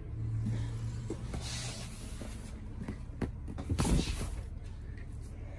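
Handling of seat cushions and an under-seat storage compartment, with a few light clicks and a louder knock just under four seconds in.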